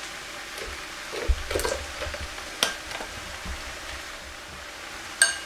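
Blue silicone stretch lid being peeled off a glass bowl, with light crinkling handling noise and a few sharp clicks, ending in a short ringing clink of glass a little after five seconds in.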